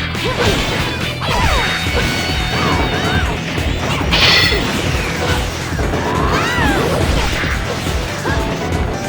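Fight scene soundtrack: background music with a steady beat under repeated hits, crashes and whooshing sound effects, with one louder crash about four seconds in.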